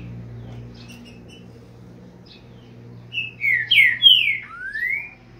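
Green-winged saltator (trinca-ferro) singing its boiadeiro song: faint short chirps, then about three seconds in a loud phrase of five whistled notes, the first four sliding down and the last sliding up.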